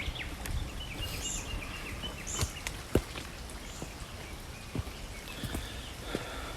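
A hiker's footsteps on a mountain trail, heard as scattered irregular steps, with a low rumble on the microphone. A bird calls in a run of short high notes during the first couple of seconds, and again faintly near the end.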